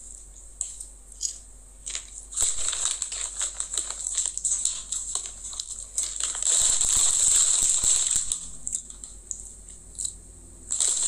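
A bag of popcorn crinkling as it is handled, with popcorn being chewed; the crinkling is loudest for a couple of seconds a little past the middle.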